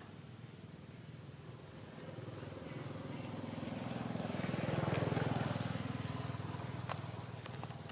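Engine of a passing motor vehicle: a low hum that grows louder over a few seconds, is loudest about five seconds in, then fades away.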